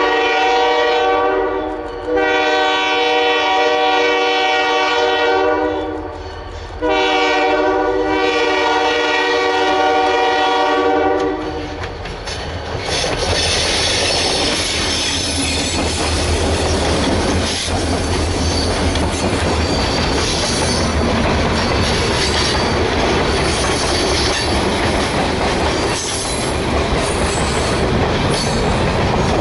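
Diesel locomotive's multi-note air horn sounding long blasts for a grade crossing, the last one ending about eleven seconds in. Then the locomotives pass close with their engines running, and a string of freight cars rolls by, wheels clicking over the rail joints.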